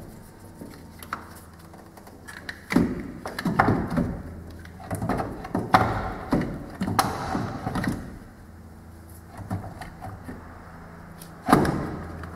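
Irregular knocks and clunks of a car battery being set into its tray and its terminals fitted under the bonnet, busiest in the middle, with one sharp knock near the end.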